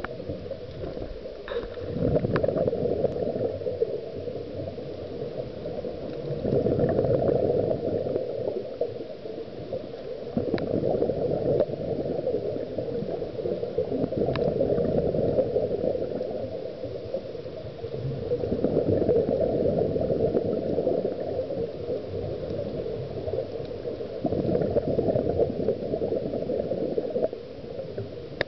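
Scuba diver's breathing heard underwater: regulator exhaust bubbles gurgling, swelling and fading about every four to five seconds with each breath.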